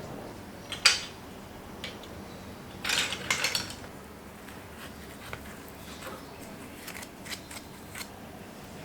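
Kitchen utensils and dishes being handled: a sharp clink about a second in, a short cluster of clatter around three seconds in, then light scattered ticks.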